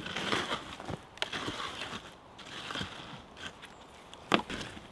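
Wood ash and charcoal being scraped and scooped up by hand in a fire pit: a run of gritty scrapes with small crunches, and one sharp crack near the end.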